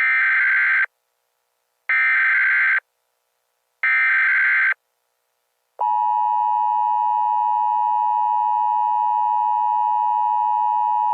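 Emergency Alert System tones: three short bursts of SAME header data tones, about a second apart. About six seconds in, the steady two-tone EAS attention signal begins and holds.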